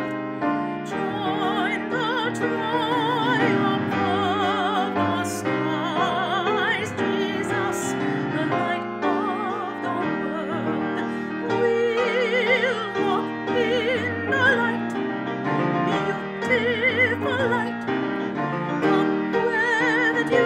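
A classically trained singer with a wide vibrato, accompanied by piano.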